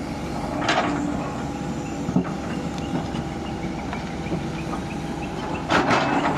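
Steady mechanical rumble with a constant low hum, broken by short rattling noises about a second in and again near the end.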